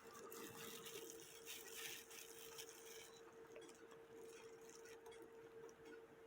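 Near silence: a faint steady hum, with a few faint small clicks scattered through it.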